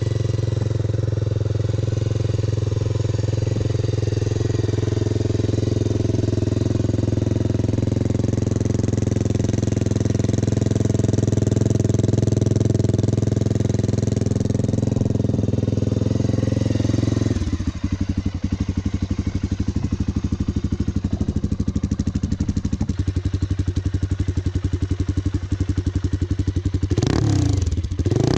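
1996 Suzuki DR350's single-cylinder four-stroke engine running through a SuperTrapp exhaust, holding a high, steady choke idle. About two-thirds through, the speed drops suddenly to a slower idle in which each exhaust pulse can be picked out, and near the end the throttle is blipped in a couple of quick revs.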